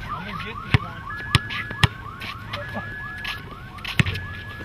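Car alarm siren sounding: a fast run of rising whoops, several a second, with held steady tones cutting in now and then. A few sharp clicks sound over it.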